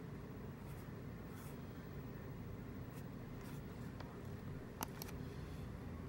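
Faint fingertip swipes across a tablet's glass touchscreen over steady low background noise, with a sharp tap just under five seconds in.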